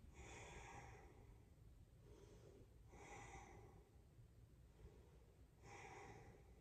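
Faint breathing over near silence: three soft, airy breaths a few seconds apart.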